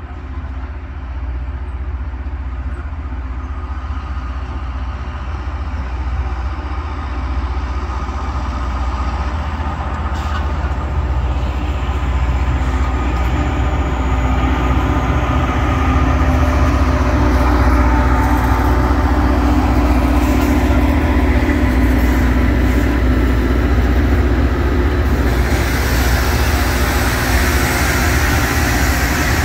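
Rail grinding train approaching and passing, working the track: a steady low diesel drone that grows louder as it nears, joined about 25 seconds in by a loud harsh hiss from the grinding stones on the rail as the grinding cars go by.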